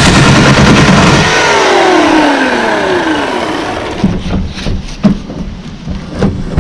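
Portland 14-inch corded electric chainsaw cutting into a log. About a second in, the trigger is released and the motor winds down with a falling whine that fades over a couple of seconds. Several sharp knocks follow as the logs are handled.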